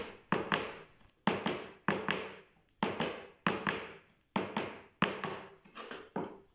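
Heeled folklórico dance shoes stamping flat-foot strikes (plantas) on a wooden dance board, alternating feet in a steady rhythm of sharp strikes, about one to two a second, with some strikes louder than others.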